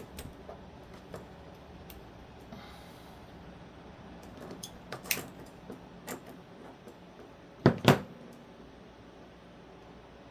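Small metal parts of a crossbar-lock folding knife clicking and tapping as it is handled and reassembled, with two louder sharp knocks in quick succession about eight seconds in.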